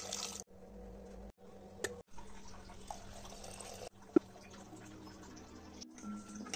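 Water poured into a steel pot of lentils and chopped vegetables, cut off sharply after about half a second. Then quieter kitchen sounds in short edited pieces, with one sharp knock about four seconds in.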